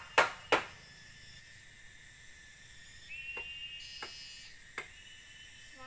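Two sharp knocks of bamboo against bamboo in the first second, then three fainter taps spread over the next few seconds, over a steady high buzz of forest insects.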